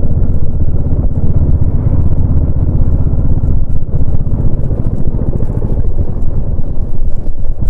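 Royal Enfield Bullet 350's single-cylinder engine running under way, its exhaust giving a steady, fast, even beat.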